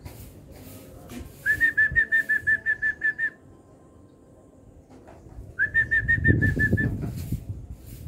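Zebra dove chick begging while being hand-fed: two runs of rapid, high squeaky peeps, about six a second. The first run starts about a second and a half in and lasts nearly two seconds; the second, shorter run comes near six seconds with muffled handling noise under it.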